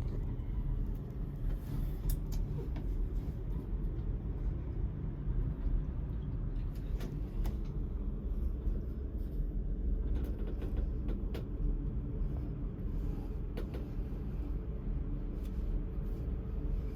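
Steady low rumble of a moving vehicle, with scattered faint creaks and clicks.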